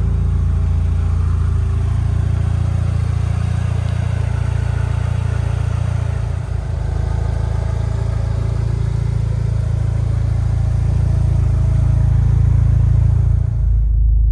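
Mitsubishi Galant VR4's turbocharged 4G63 four-cylinder engine idling steadily after its rebuild. Near the end the sound changes abruptly to a duller low rumble.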